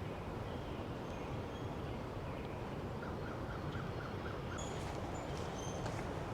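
Several wild birds calling over a steady low outdoor background hum: thin high chirps scattered throughout, and a quick run of about seven short repeated notes about three seconds in.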